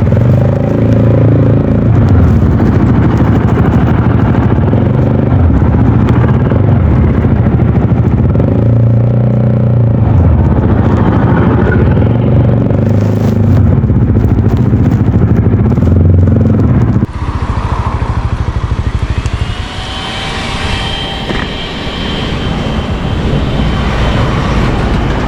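VOGE 300DS motorcycle engine running hard under acceleration at highway speed, with wind rushing on the microphone. About two-thirds of the way through, the sound drops suddenly to a quieter level. A faint rising whine follows.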